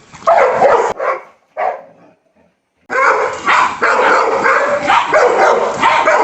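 An adult dog and a puppy barking and yelping in a fight: a few short outbursts, a brief gap, then continuous loud scuffling noise from about three seconds in.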